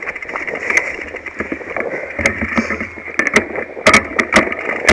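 Mountain bike riding over a rough dirt singletrack, picked up by a handlebar-mounted camera: steady tyre and trail noise with rattling knocks from the bike, the sharpest knocks bunched a little past three seconds in and again around four seconds.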